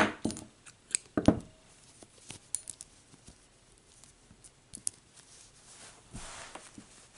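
Steel scissors snipping crochet yarn and being handled on the table: a few sharp clicks and knocks, the loudest about a second in, then light ticks and a soft rustle near the end.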